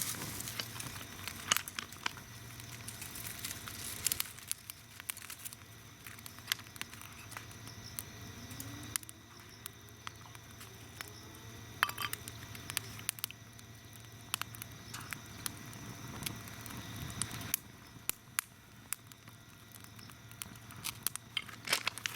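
Small wood fire of cedar kindling, leaves and hemp-twine tinder crackling, with sharp irregular pops and snaps.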